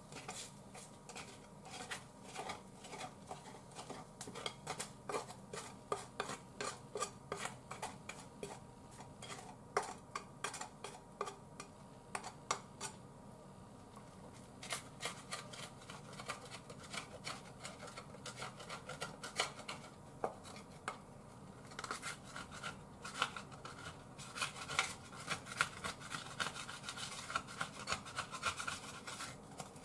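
A spatula scraping the inside of a frying pan in many short, quick strokes, with two brief pauses, as it clears away cabbage pancake that has stuck to the pan.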